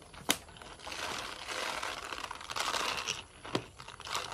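A large plastic sack of dry cat food rustling and crinkling as it is handled, for about two seconds in the middle, with a sharp click near the start and a couple more near the end.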